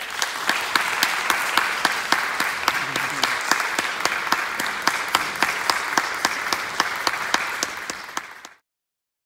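Audience applauding, with one person clapping close by at about four claps a second over the crowd; it cuts off abruptly near the end.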